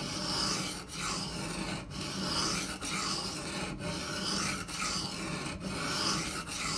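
CTS-204P steel knife blade being ground back and forth on a wet, coarse Shapton Pro 120-grit whetstone, a steady rasping stroke about once a second. This is the coarse first stage, grinding out small nicks in the edge at its original angle.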